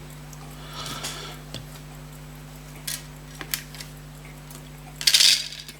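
A few small, light clicks and a short scrape, the loudest just after five seconds in, from small metal watch parts and tools being handled on a workbench, over a steady electrical hum.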